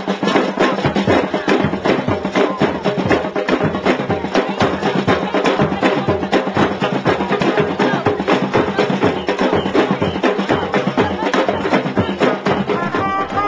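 A group of drums played together in a fast, dense, unbroken rhythm.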